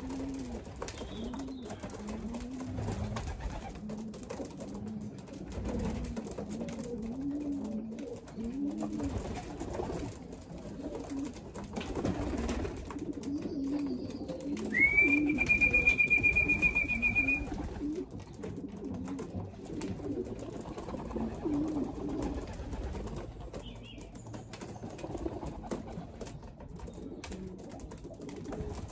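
Racing pigeons cooing repeatedly around a loft while young birds are being let in to trap. About halfway through, a single high whistle holds steady for two to three seconds and is the loudest sound.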